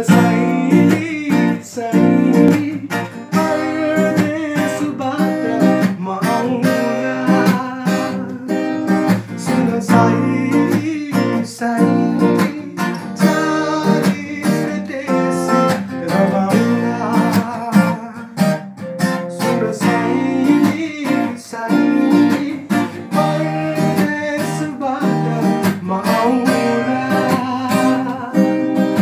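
Acoustic guitar strummed and picked in a steady rhythmic pattern, chords ringing.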